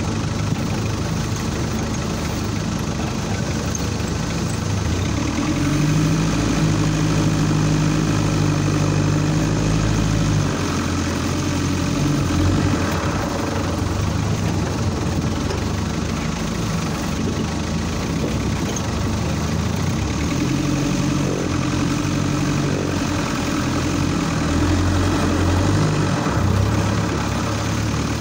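Off-road vehicle's engine running, heard from on board as it drives over a rough dirt track. The revs change several times, held higher for a few seconds about five seconds in and again over the last several seconds.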